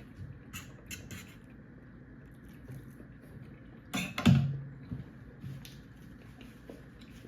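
Close-up eating sounds: chewing and wet lip smacks, with a louder smack and a brief low hum about four seconds in.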